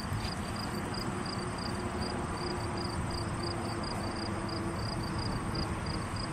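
Outdoor ambience: an insect chirping steadily at a high pitch, about four chirps a second, over a steady background hiss.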